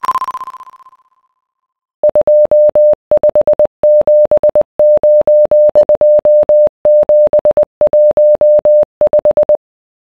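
Morse code beeps: a single steady mid-pitched tone keyed into dots and dashes for about seven and a half seconds. It spells out 2579 2715, the Chinese telegraph code numbers for 书桌 ('desk'). Before the beeps start, a higher ringing tone fades out within the first second.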